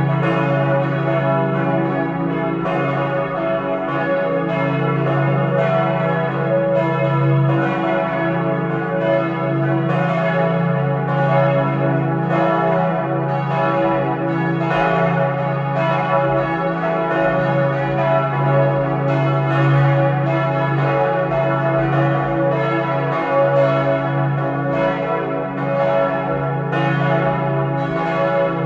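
Four church bells tuned to C♯, E, F♯ and G♯ swinging and ringing together, their strokes overlapping in a dense, continuous, unbroken peal: ringing to call people to a church service.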